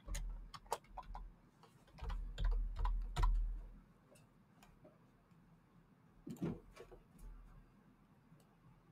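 Typing on a computer keyboard: a run of scattered keystrokes over the first four seconds, then a few more clicks around six to seven seconds in.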